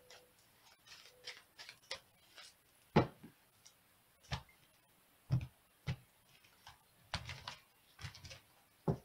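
Tarot cards being handled over a cloth-covered table: light rustling at first, then a series of short taps and soft thumps, about half a dozen, as the deck is tapped and cards are laid down.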